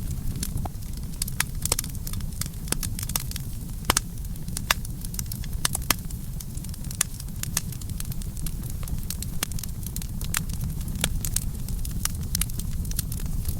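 Wood campfire burning: a steady low rumble with frequent, irregular sharp crackles and pops from the burning wood.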